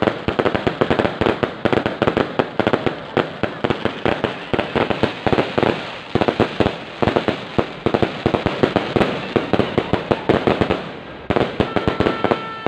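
Fireworks going off in a rapid, unbroken string of sharp cracks and bangs, many a second. Near the end a steady tone joins the crackling.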